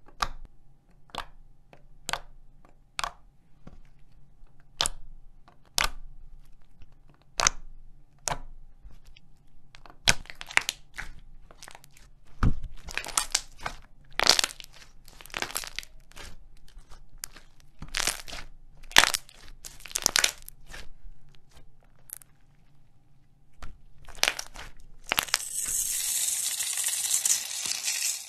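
Clear red slime squished and poked by fingers, giving irregular sharp clicks and pops, faster and denser in the middle. About three seconds before the end, a blade starts shaving a bar of soap with a steady, crisp scraping.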